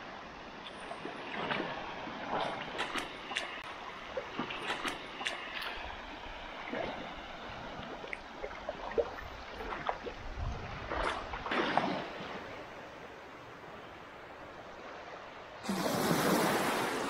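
Small waves lapping and washing up a flat sandy shore, with scattered light splashes and crackles of water on the sand. Near the end a louder rush of surf sweeps in.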